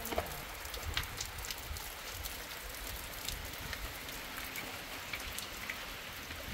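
Steady rain falling: an even hiss with scattered sharp taps of single drops.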